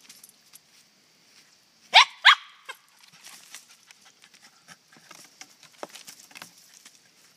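Havanese dog giving two short, high yips that rise in pitch, about two seconds in, then a fainter third, excited while hunting a chipmunk at a fallen log. Around them are light rustling and scratching in dry leaves as the dog noses and digs along the log.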